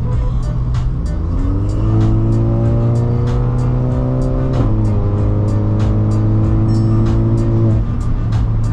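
Music playing loud through the car's sound system, heard from inside the cabin, with a steady beat of about two clicks a second and heavy bass. Held synth-like tones come in about a second and a half in, drop in pitch about halfway through, and stop near the end, over the car's running and road noise.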